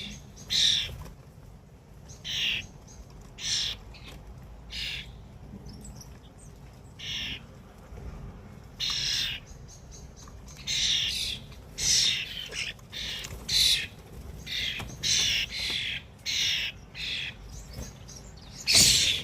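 Birds calling: a string of short, harsh calls, a few seconds apart at first, then coming thick and fast from about halfway on.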